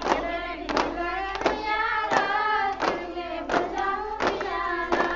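A group of women singing a Bathukamma folk song together, with hand claps in unison keeping the beat at about one clap every 0.7 seconds.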